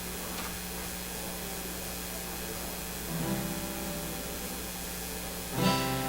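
The instrumental introduction to a worship song. A low note is held steadily, other notes join about three seconds in, and a louder, fuller chord is struck near the end.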